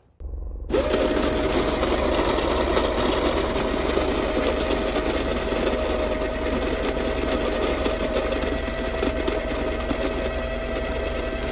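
Baratza Encore conical burr grinder grinding coffee beans: its motor starts about half a second in and runs loud and steady, a single held whine over a gritty grinding noise, beginning to spin down right at the end.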